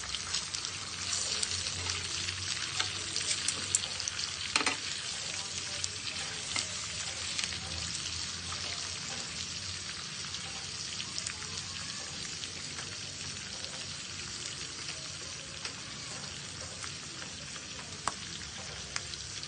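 Pork chops sizzling in hot fat, a steady crackling hiss with a few sharp clicks.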